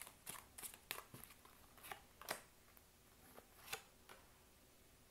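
A tarot card deck being shuffled and drawn by hand, with a string of short, crisp card snaps in the first two and a half seconds and two more near the end as cards are laid down on the wooden tabletop.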